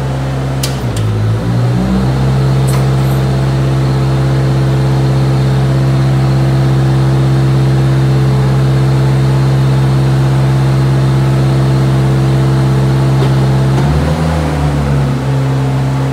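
PowerBoss Nautilus HD scrubber-sweeper's engine running steadily while its hydraulics raise the debris hopper. The engine note wavers and dips about a second in and again a couple of seconds before the end.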